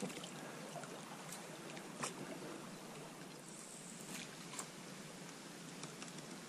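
Faint river ambience around an inflatable boat: a steady, even hiss of water, with a few light clicks or knocks.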